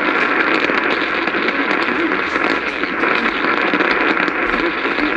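Steady loud static hiss from a weather radio receiving a NOAA Weather Radio warning broadcast, the synthesized voice reading the warning buried faintly under the noise.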